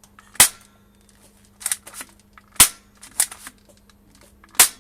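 Plastic toy shotgun firing: three loud, sharp snaps about two seconds apart, with lighter clicks of the mechanism between them.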